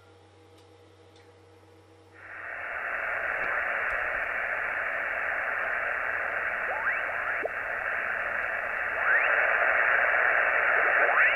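Kenwood TS-480 HF transceiver's receiver audio. After about two seconds of faint hum, band noise and static switch on, and as the tuning knob is turned up through the 40-metre band in lower sideband, stations sweep past as rising and falling whistles. The static gets louder near the end.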